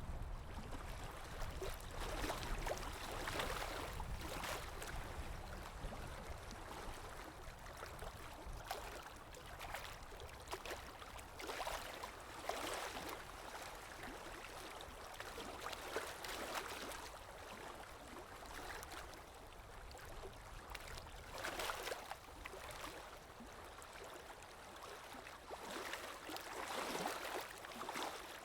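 Water lapping in irregular small splashes and gurgles, with a low wind rumble underneath that eases after the first few seconds.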